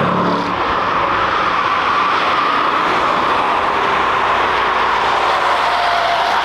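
Cars passing at speed on a race track: a steady wash of engine and tyre noise, with an engine note that slowly falls.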